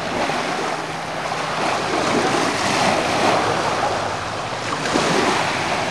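Small waves washing up on the shore in a steady surf wash that swells a little in the middle, with wind buffeting the microphone.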